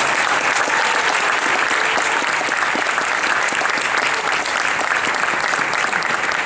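Crowd of spectators applauding, a steady mass of hand claps.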